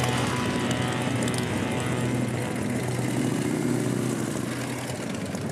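Several cruiser motorcycles running at low speed as they ride past one after another, the engines' note rising and falling briefly about halfway through and the sound easing off slightly near the end.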